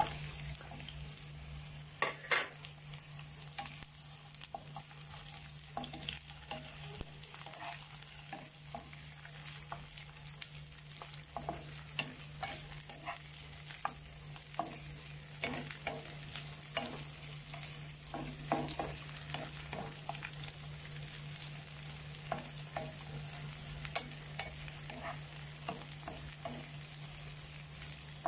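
Sliced onions, ginger and garlic sizzling in hot oil in a pan while a wooden spatula stirs them, with frequent light scrapes and taps against the pan. There are two sharper knocks about two seconds in, and a steady low hum underneath.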